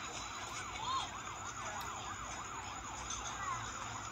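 Emergency siren yelping, its pitch sweeping rapidly up and down about five times a second, over a steady background hiss.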